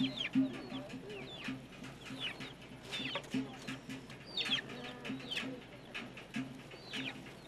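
Chickens squawking and clucking over and over, in short cries that fall in pitch, under a low, even pulsing.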